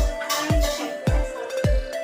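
Electronic background music: a deep kick drum beating steadily, a little under two beats a second, under held synth tones.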